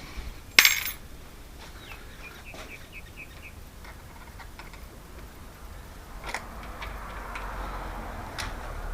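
A sharp metallic clink with a short ring, like small metal hardware or a tool being set down, followed by a run of light quick ticks and a few small handling clicks.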